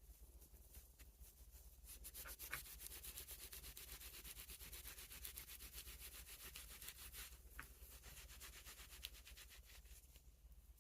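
Faint, quick back-and-forth rubbing strokes of hand-polishing on a pocket knife's bone handle. The strokes start about two seconds in and ease off near the end, with a couple of short squeaks.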